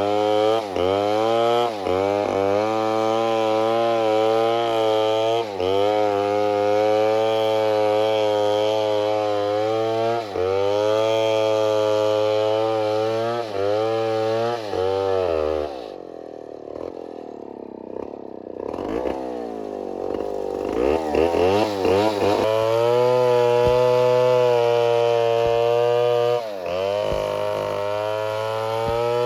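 Two-stroke chainsaw running at high speed, its pitch dipping briefly every few seconds. About 16 seconds in it drops to idle, then is revved in quick rises and held at full speed again.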